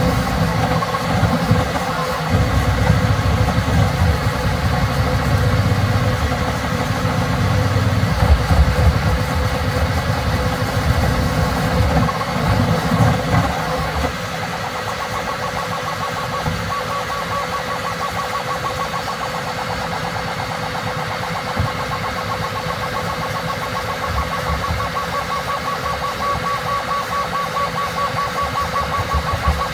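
Bambu Lab X1 Carbon 3D printer running a print at ludicrous speed, its stepper motors buzzing and whirring as the toolhead darts back and forth. A heavy, shifting low rumble fills the first half. About halfway through it drops away, leaving a quieter, steadier pulsing whine.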